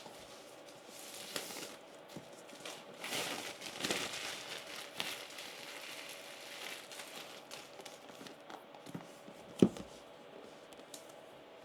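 Packaging being handled and unwrapped: irregular rustling and crinkling, busiest a few seconds in, with one sharp knock near the end.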